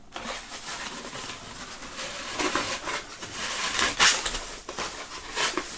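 Clear plastic wrapping film crinkling and rustling as it is pulled off and out of a styrofoam packing insert, with irregular sharp crackles.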